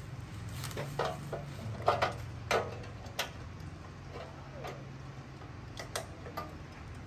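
Naturehike portable butane camping stove's control knob being turned, its igniter clicking sharply several times at uneven intervals, over a low steady hum.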